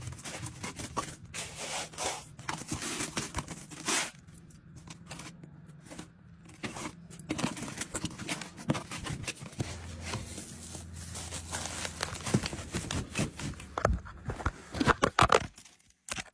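A cardboard box being opened and rummaged through by hand, with the packing tearing and crinkling and cardboard scraping. It cuts off suddenly near the end.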